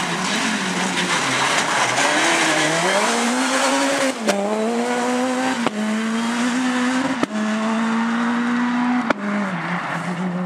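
Rally car engine running at high revs as the car accelerates away, pitch climbing and then holding high. Four sharp cracks come about a second and a half apart, the last one followed by a drop in pitch.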